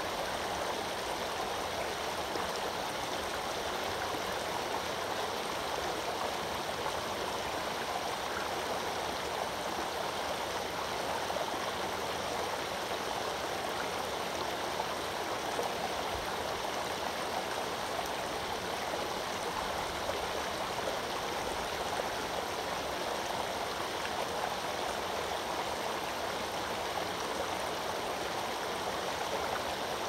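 A shallow brook babbling over rocks and gravel: an even, unbroken rush of water.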